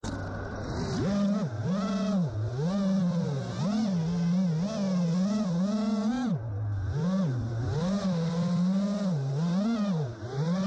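FPV quadcopter's electric motors whining, the pitch rising and falling every half second or so as the throttle is worked.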